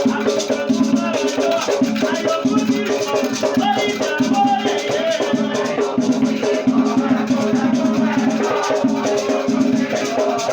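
Batuque ritual music: shaker rattles in a dense, steady rhythm over drumming, with voices singing.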